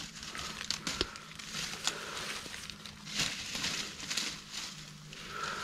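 Dry leaf litter rustling and crackling with scattered small snaps and clicks, as hands work through the leaves to pull up termite mushrooms from the ground.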